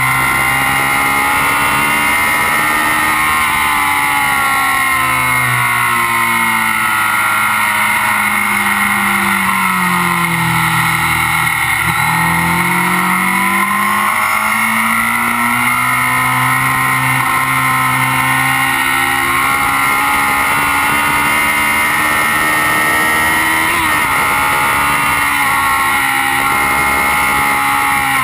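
Kawasaki Z750's inline-four engine at track speed with heavy wind and road rush: the revs fall steadily for several seconds as the bike slows, then climb through a long pull back up, with a short jump in pitch near the end.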